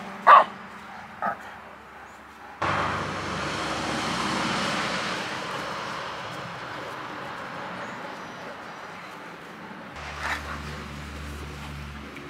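A dog barks once at the start; then a steady rushing noise comes in suddenly about two and a half seconds in and slowly fades, with a low hum joining near the end.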